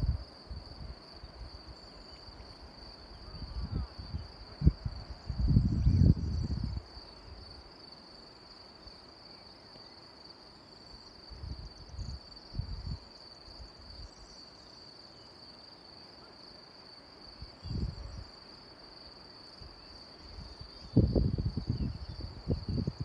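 Insects chirring steadily on one high, even pitch, with gusts of wind buffeting the microphone as low rumbles several times, loudest about five seconds in and again near the end.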